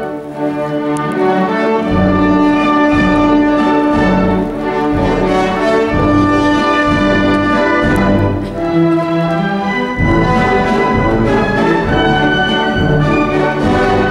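Orchestral ballet music with strings and brass; the low instruments come in strongly about two seconds in.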